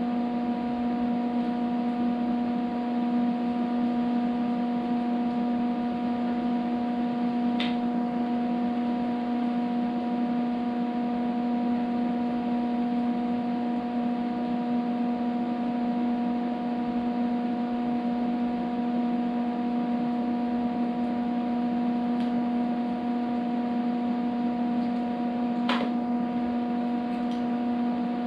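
A steady, even hum holding one pitch with its overtones, with a couple of faint clicks.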